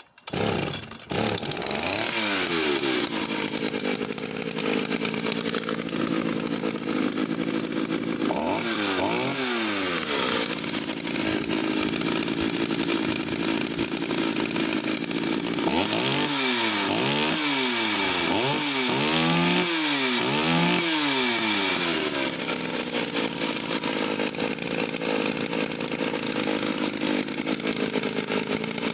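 Vintage Partner S55 two-stroke chainsaw firing up and running, revved up and down repeatedly, with a quick run of about half a dozen revs in the middle, between spells of steady running.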